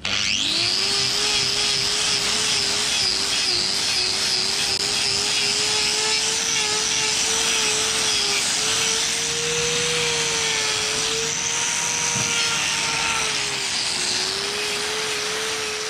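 Angle grinder with a hoof-trimming disc spinning up with a rising whine, then running steadily as it grinds down the horn of a bull's hoof claw. Its pitch dips briefly twice as the disc is worked into the hoof.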